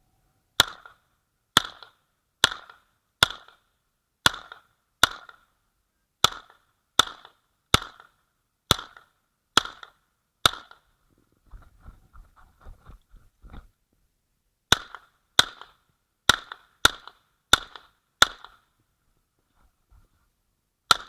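Uzi Pro 9mm pistol firing single shots at a steady pace, about one a second: a string of about twelve, a pause of a few seconds with faint clatter, then six more and one last shot at the end.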